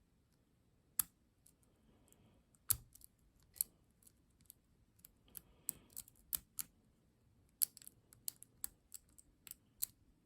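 Lock pick and tension wrench clicking irregularly in a Ruko ASSA Abloy 2 pin-tumbler lock cylinder as it is being picked: small sharp metal clicks, a few a second, some louder than others.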